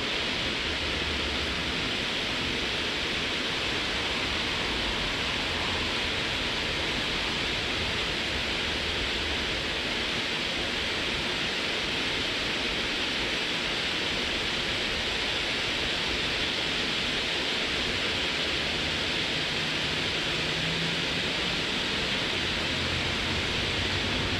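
Lancework firework picture burning with a steady, even hiss from its many small lances.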